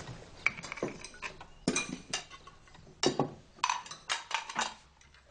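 China plates and cutlery clinking at a laid table as plates are handed round: a string of irregular clinks and taps, some ringing briefly.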